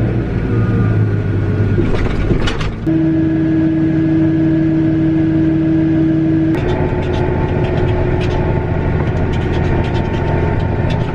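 Combine harvester running under load, heard from the cab: a steady engine and machinery drone whose hum shifts pitch twice, about three seconds in and again about six and a half seconds in, with a brief patch of clicks before the first shift and many light ticks in the second half.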